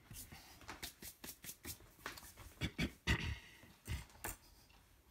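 Small knocks, clicks and rustles of spice containers and a plastic measuring spoon being handled on a kitchen counter, the loudest knocks a little after the middle.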